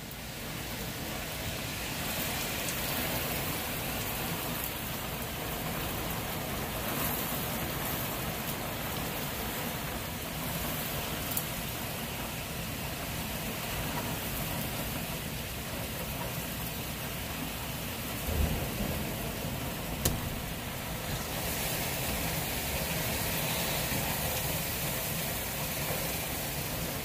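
Heavy rain pouring down steadily in a thunderstorm. About two-thirds of the way through there is a low thump, followed soon after by a short sharp crack.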